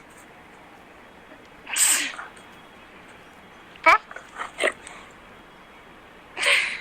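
A dog blowing short, noisy puffs of breath through its nose, one about two seconds in and one near the end, with a few short sharp sounds from it around the middle. It is a protesting huff at being asked to give its paw.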